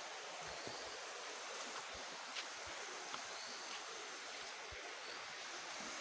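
Shallow river running steadily over stones, heard as an even rushing hiss, with a few soft thumps and light clicks from footsteps and the handheld phone.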